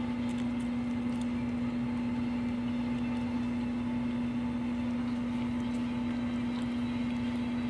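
A steady low hum holding one constant tone, with a few faint clicks over it.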